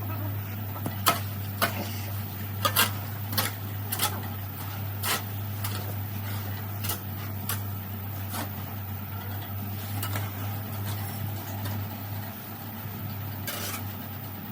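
About a dozen irregular sharp clinks and knocks, most of them in the first ten seconds and one more near the end, over a steady low hum.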